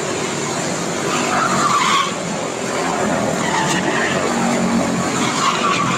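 A pack of quarter midget race cars, with single-cylinder Briggs & Stratton Animal engines, running around a small oval. Engines whine up in pitch several times as cars accelerate out of the turns and pass by.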